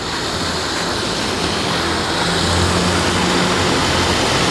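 Steady rushing hiss and low roar from an aluminium steamer pot on a lit burner, with its lid lifted off so the steam comes out freely; it grows a little louder over the first couple of seconds, then holds.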